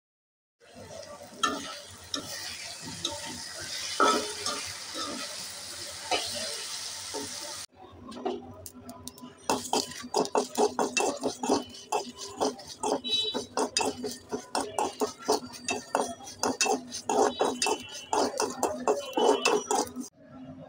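Black cumin seeds and dried red chillies stirred in a dry metal pan as they roast: a rapid, dense run of scrapes and rattles against the pan through the second half. Before that comes a steady hiss with a few knocks, which cuts off abruptly near eight seconds.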